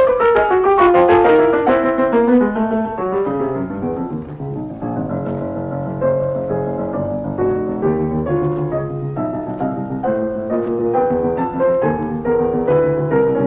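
Piano music: a quick falling run of notes, then slower, lower chords and held notes.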